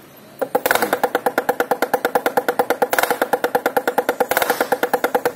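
Damru, a small hourglass-shaped hand drum, rattled fast as it is twisted so its knotted cords strike the two heads in rapid, even strokes with a ringing tone, starting about half a second in.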